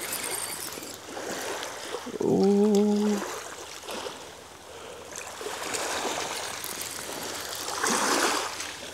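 Small waves washing in and draining back over a shingle beach, swelling and fading, with a bigger wash near the end. About two seconds in comes a short hummed "mmm" from a man's voice.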